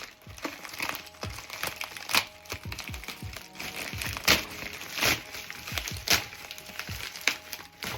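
Packaging being handled and opened: irregular crinkling and crackling of paper or plastic, with a few louder crackles and knocks, over background music.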